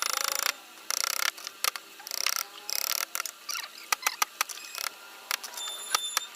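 Hand chisel cutting into wood in short, irregular scraping strokes, with a few sharp clicks between them.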